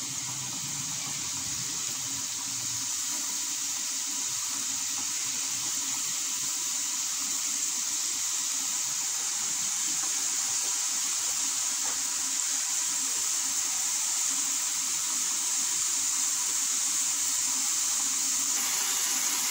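Squares of maida dough deep-frying in hot oil in a pan: a steady sizzling hiss that grows gradually louder.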